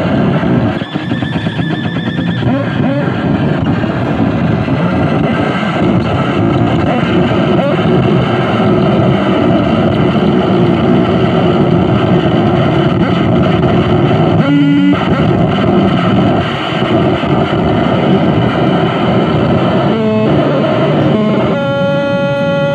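Harsh noise music played live on electronics: a loud, dense wall of distorted noise with shifting pitched layers, breaking briefly in the middle. Near the end it gives way to a steady held tone with many overtones.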